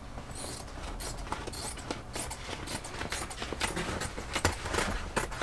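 Stiff black fabric rustling and crinkling as it is unrolled against the bus windows and cut with scissors: a run of irregular small clicks and snips.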